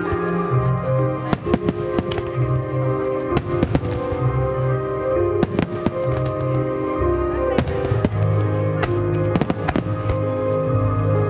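A Japanese starmine fireworks barrage set to music: sharp bangs and cracks of shells bursting at irregular intervals over a musical soundtrack of held notes.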